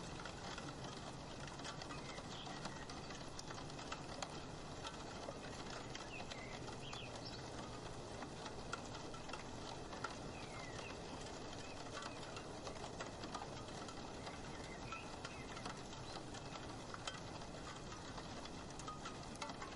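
Rain pattering steadily on a roof window, with many separate drop taps scattered through an even hiss of rainfall.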